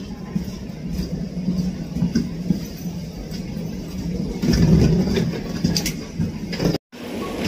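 Passengers walking and wheeling luggage along an airport jet bridge: a steady low rumble with scattered knocks, louder about four and a half seconds in.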